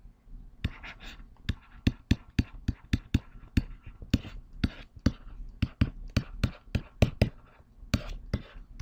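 A stylus tapping and scratching on a pen tablet or touchscreen while handwriting digital ink: a quick, uneven run of sharp taps, about three a second, with short scratchy strokes between them.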